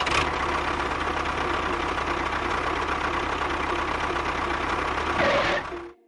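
Tractor engine running at a steady idle with a fast low knock, swelling briefly near the end and then cutting off.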